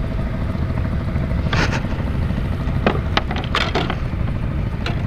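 A steady low rumble of wind on the microphone, with a handful of short sharp knocks and crackles starting about a second and a half in, as a small spotted scat just caught on a pole rod is swung into the rowing boat and grabbed off the line.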